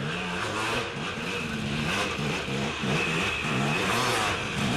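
Dirt bike engines revving up and down again and again, the pitch rising and falling about every half second, as riders fight their way up a steep race hill.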